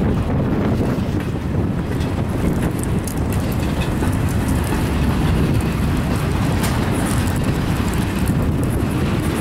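Intermodal freight train's well cars rolling past close by: a steady rumble of steel wheels on the rails, with scattered short clicks.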